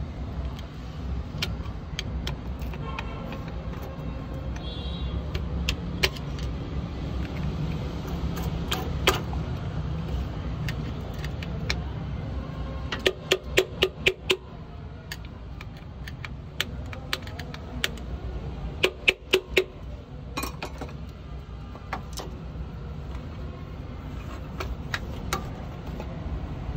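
Metal tools and clutch parts clinking together, with scattered single clicks and two quick runs of about five ringing metallic clicks, over a steady low background rumble.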